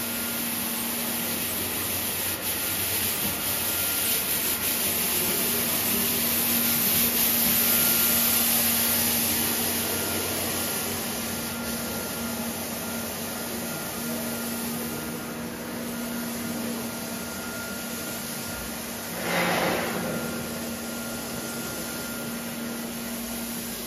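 Autonomous scrubber-dryer running: a steady whirring of its suction motor and scrub brushes with a steady low hum. It gets louder as it passes close, about a third of the way in, and fades as it moves off, with one short louder noise about three-quarters through.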